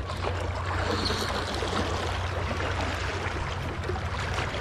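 Steady rushing noise of seawater moving and lapping under a hooked fish.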